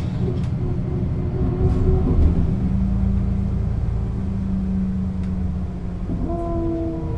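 Engine and ZF gearbox of a 1996 Setra S 315 UL bus running under way. The engine note changes about two seconds in, holds steady, then picks up again near the end.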